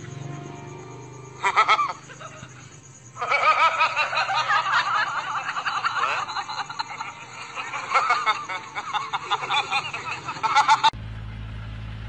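Laughing and snickering: a short burst, then giggling that runs on for several seconds. It stops abruptly near the end, leaving a steady low hum.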